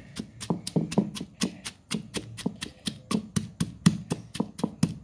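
Wooden pestle pounding in a stone mortar, crushing onion, garlic, green chillies and tamarind for chutney: steady, even blows, about four to five a second.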